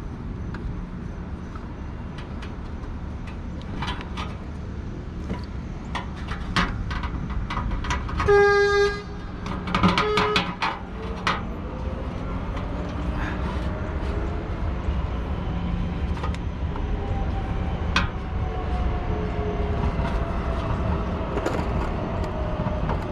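Scattered clicks and knocks of a tool being worked on the oil filter, over a steady low outdoor rumble. About eight seconds in, a horn sounds for under a second, followed by slow gliding tones like a passing vehicle.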